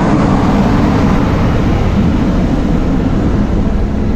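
Open-sided tourist trolley bus driving, its engine and road noise heard from on board as a steady rumble.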